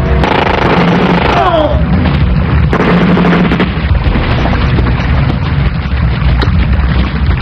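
Movie battle sound effects: gunfire cracking again and again over a heavy, steady booming rumble of explosions, with a falling whine about a second and a half in.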